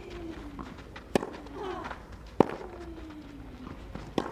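Tennis ball struck by racquets three times on a clay court: a serve, the return and the next groundstroke, sharp single pops about a second and a half apart, the middle one the loudest. Faint falling vocal sounds trail after the strokes.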